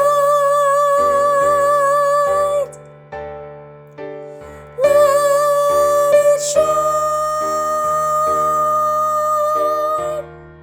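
A mezzo-soprano singing long held notes with vibrato over keyboard accompaniment. Two sustained phrases, the second held for about five seconds, with a short stretch of keyboard chords alone between them.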